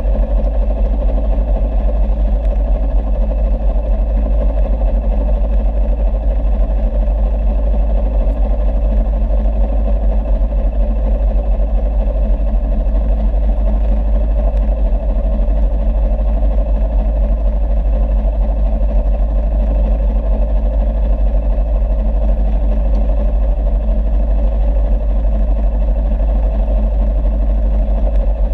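A boat engine running steadily with a constant low drone that does not change in pitch.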